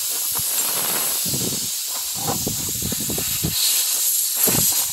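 Pressurised air hissing steadily out of a puncture in a truck tyre's tread as a sticky rubber plug is forced into the hole on the insertion tool, with irregular lower rubbing noises from the tool working in the hole partway through.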